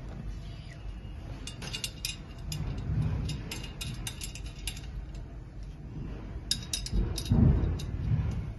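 Small metal screws and fittings clicking and clinking in the hands while gold-plated iron tube sections of an arch frame are fitted together, with a few dull knocks of the tubes against the carpeted floor. The loudest knock comes near the end.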